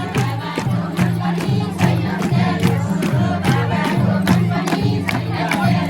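Teej song music with a steady drum beat and a repeating bass line, with crowd voices underneath.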